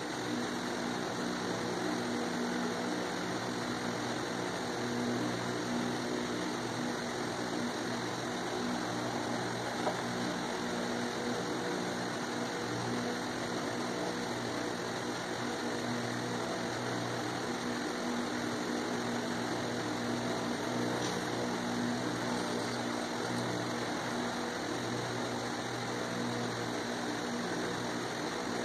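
A steady mechanical hum with a low droning pitch, like a small motor running.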